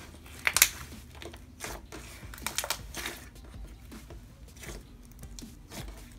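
Glitter slime being squished, folded and pressed by hand, giving irregular wet crackles and pops. The loudest crackles come about half a second in and again around three seconds.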